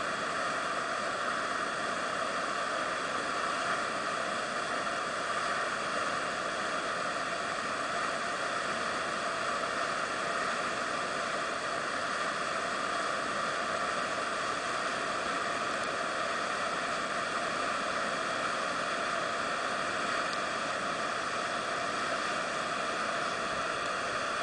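Whitewater rapid rushing steadily: a constant, even noise of churning water with no breaks.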